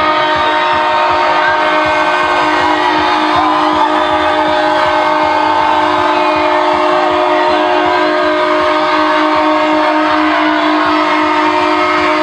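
Diesel locomotive air horn held on one steady multi-tone chord, unbroken throughout, over the noise of a dense crowd.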